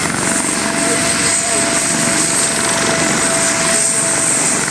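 Air ambulance helicopter running on the ground before take-off: a steady rotor and turbine noise with a constant high whine.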